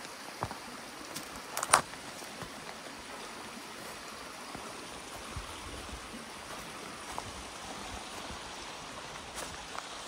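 Creek water running steadily, with a few sharp clicks, the loudest just under two seconds in.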